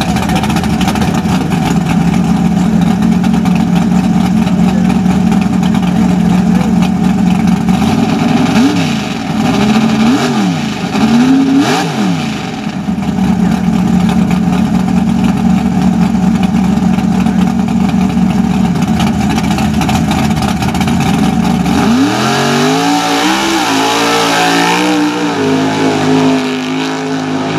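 Mud-racing truck's engine idling with a steady rumble, blipped three times in quick succession. About 22 seconds in it revs up hard and keeps climbing as the truck launches through the mud pit.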